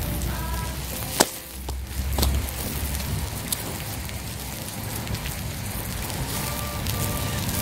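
Wood fire crackling under a stone slab with pork belly sizzling on it: a steady hiss full of small pops, with a sharp snap about a second in and a few more later.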